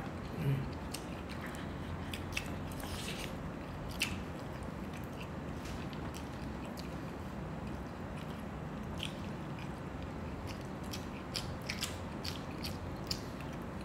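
Close-up chewing and mouth sounds of people eating rice and fish by hand, with scattered soft clicks and smacks over a steady low hum.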